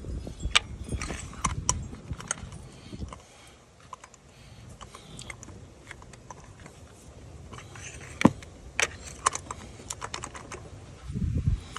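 Sparse light clicks and taps of hard parts being handled by hand at a car engine's spark plug well, with a low rumble in the first few seconds and again shortly before the end.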